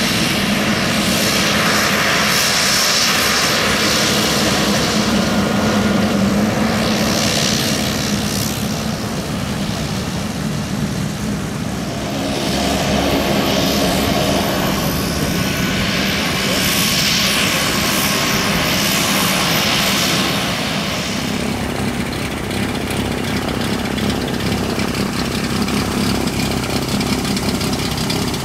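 Cessna 208B Grand Caravan's Pratt & Whitney PT6A turboprop engine and propeller running as the plane taxis: a steady low drone with a hissing whine that swells and fades twice.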